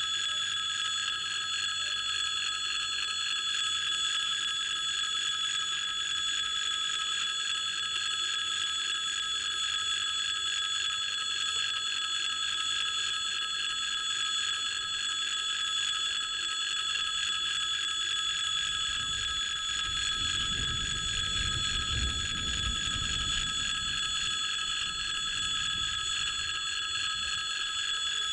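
Level-crossing warning bell ringing continuously and evenly, the signal of an approaching train. Over several seconds in the latter part a low rumble swells and fades beneath it.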